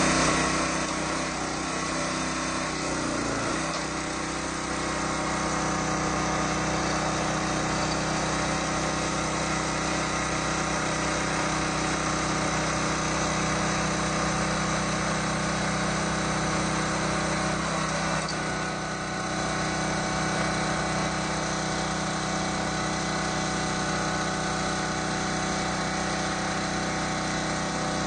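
The 6.5 hp petrol engine of a hydraulic log splitter running steadily. There is a slight change in its sound about 3 seconds in and a small dip in level near 18 seconds.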